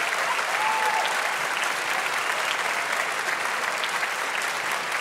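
Large audience applauding steadily after an orchestral performance.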